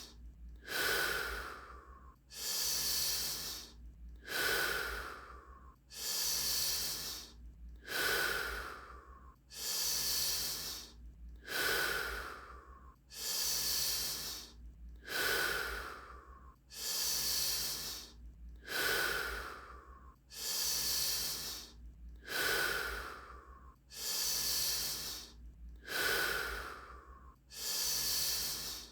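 A person doing Wim Hof power breathing: deep, forceful breaths in and out in an even rhythm, about one full breath every two seconds.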